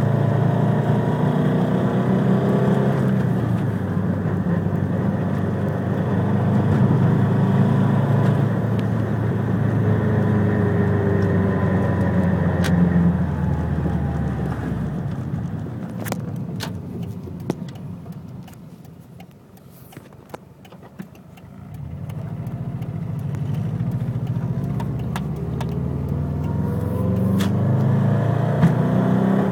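Subaru WRX STi's turbocharged flat-four engine running with revs rising and falling, easing off to a quieter stretch with a few sharp clicks about two-thirds of the way through before building again. The owner says it makes a knocking noise from the front of the car above 3,000 rpm.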